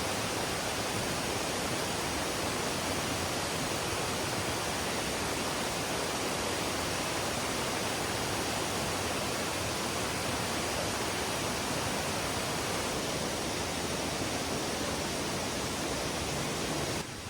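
Valley stream rushing steadily over rocks; the rush drops suddenly to a quieter level just before the end.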